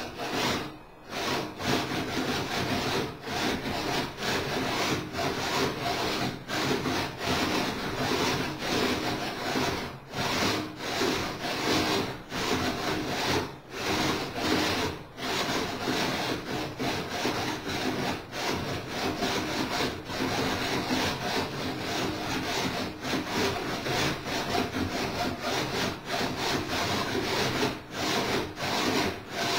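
Motor-driven winches of a kite-control robot rig running, reeling line in and out back and forth, a rough mechanical whirr with frequent brief dips.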